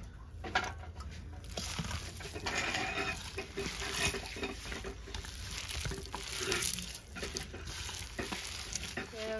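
A hand mixing and squeezing wet shredded mushroom and chopped greens in a bowl: an irregular wet squishing and rustling.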